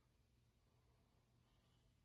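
Near silence: the quiet pause between mouth snores, with only a faint low room hum.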